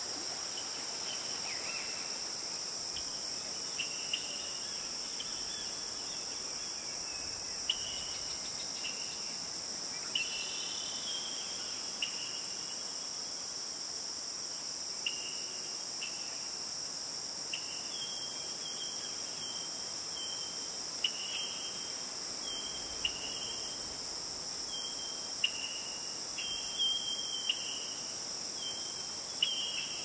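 Steady high-pitched insect chorus, cricket-like, with short chirping calls over it that come more often in the second half.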